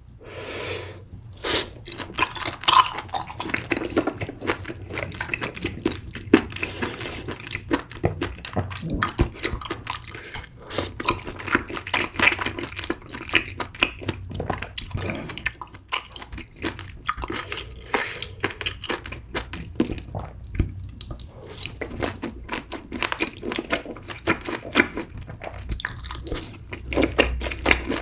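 A person chewing food close to the microphone, with many small irregular mouth clicks and occasional knocks of utensils against a dish.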